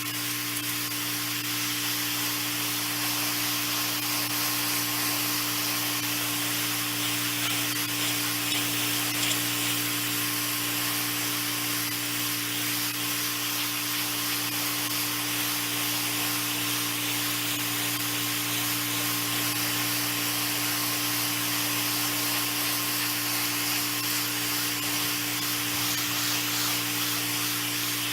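Stanley FatMax 3400 PSI gas pressure washer running steadily, its engine hum under the loud hiss of the high-pressure water jet spraying.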